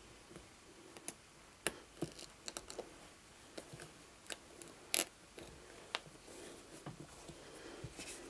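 Irregular small clicks and taps with light handling rustle as hands work a doll-kit joint connector and elastic cord into the soft vinyl hip opening of a doll. The sharpest clicks come about two and five seconds in.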